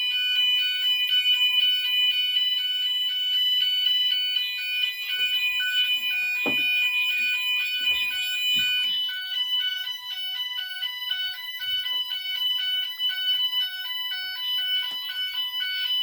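GENT Vigilon fire alarm system in full alarm: its sounders give one steady high-pitched tone over a rapidly alternating multi-tone pattern, with one of the tones dropping out about halfway through. A few light handling knocks come in the middle.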